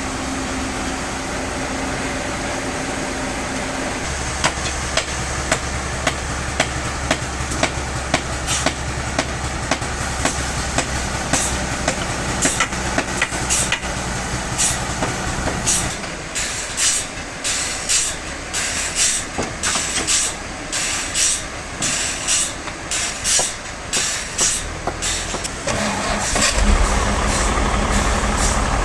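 Heavy machine engine running steadily, its note changing about four seconds in. Repeated sharp knocks follow, then an irregular clatter. Near the end a deep engine note picks up strongly.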